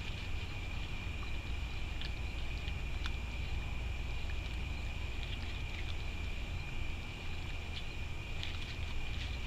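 Raccoons feeding from a dish: scattered small clicks and crunches of chewing and rummaging in the food. Under them run a steady low rumble and a continuous high-pitched tone.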